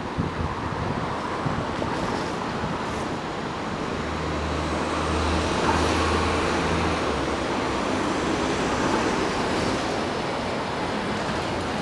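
Wind noise mixed with road traffic, a passing vehicle's low engine hum swelling to a peak around the middle and then fading.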